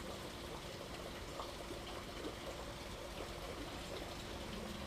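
Steady rushing and trickling of water churned up by a pond aerator.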